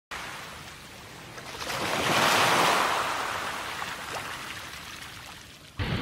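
Sea wave surging in, swelling about two seconds in and then slowly washing back out. Near the end it cuts abruptly to a steadier, duller rush of surf.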